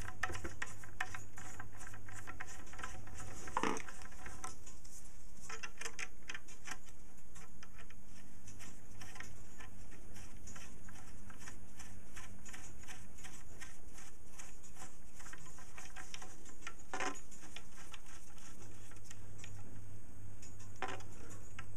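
Small irregular clicks and light scraping of a screwdriver turning small screws in aluminium pivot blocks on a wooden pendulum rod, with three louder knocks of the parts, the first a few seconds in and two near the end.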